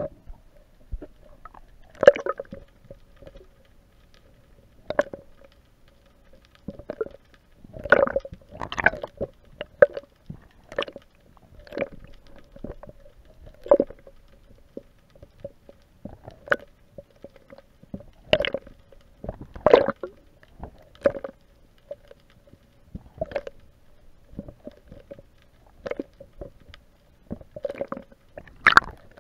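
Muffled knocks and sloshes of water against the kayak hull, heard through the underwater camera's housing. They come irregularly, every second or two, over a faint steady hum.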